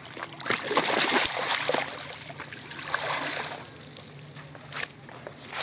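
Water splashing and sloshing in bursts as a hooked tambacu thrashes at the surface, the splashing dying down near the end.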